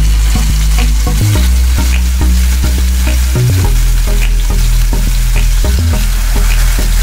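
Marinated hilsa fish pieces sizzling and crackling as they are laid into hot oil in a frying pan, with a low hum underneath that shifts in pitch a few times.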